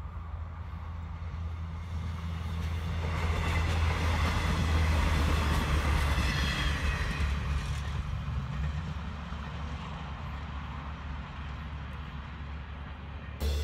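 Diesel passenger train passing close by: its rumble and wheel noise swell over a few seconds, are loudest about five seconds in, then fade as it draws away, over a steady low engine drone.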